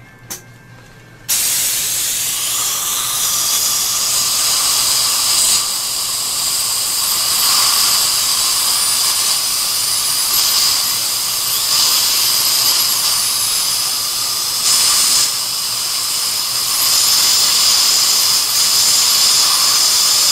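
High-speed dental handpiece (drill) running with a steady high-pitched whine and hiss, starting about a second in. It is cutting the teeth under a removed bridge to give clearance for a new bridge.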